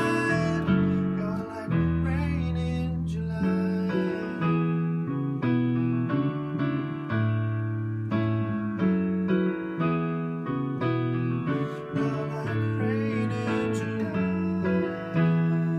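Pop ballad played on a digital stage piano with electric bass guitar, picked up by the camera's own microphone. The pianist sings a phrase near the start and again near the end, with keyboard chords and bass notes in between.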